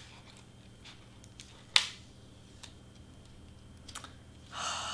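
A few light taps and clicks of cardstock pieces being handled and set down on a work table, with one sharper click about two seconds in and another near the end, followed by a brief paper rustle.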